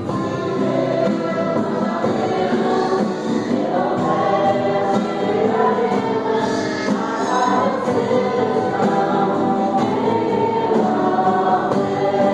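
Gospel worship music: a choir singing over a band, with a drum kit playing along.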